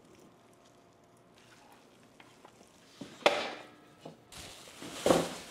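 Chicken pieces scraped off a cutting board into a large pot. The board knocks sharply against the pot about three seconds in, scrapes for a moment, and knocks again near the end. Before that, only faint soft handling of the shredded chicken.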